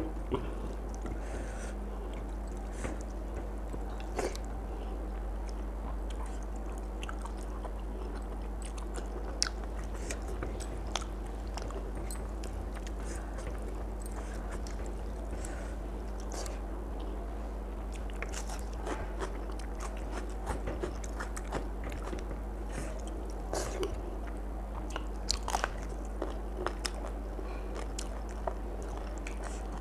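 A person eating rice and chicken feet curry by hand close to the microphone: chewing, with small crunches and clicks scattered through and bunched more thickly in the second half, over a steady low hum.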